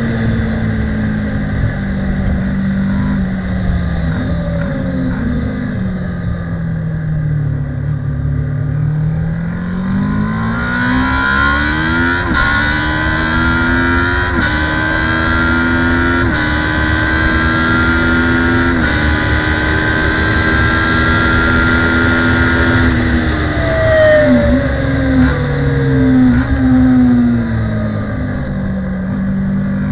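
Kawasaki ER-6 (ER650) parallel-twin race bike engine heard onboard on a lap. The revs fall through downshifts with short throttle blips over the first few seconds, bottom out, then climb hard through about four quick upshifts to a sustained high note. Near the end the revs fall again through another series of blipped downshifts.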